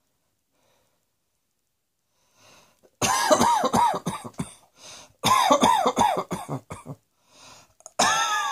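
A person coughing repeatedly, in three fits of several coughs each with a short breath drawn between fits, starting about three seconds in.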